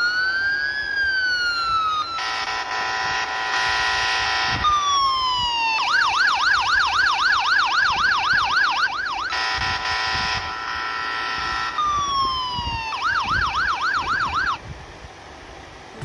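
An anti-theft alarm app sounding its siren through a smartphone's loudspeaker: the theft alarm set off by the app's proximity-sensor mode. It cycles through patterns, first a slow rising and falling wail, then a steady blaring tone, then a fast warbling yelp, the blare and the yelp again, and stops about a second and a half before the end.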